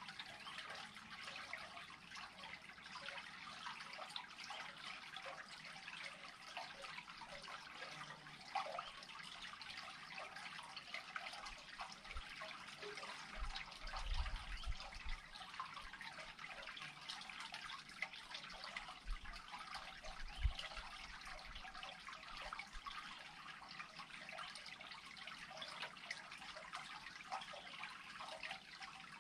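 Water steadily trickling and gurgling as it drains through an unclogged culvert. A few low thumps come near the middle, the sharpest about twenty seconds in.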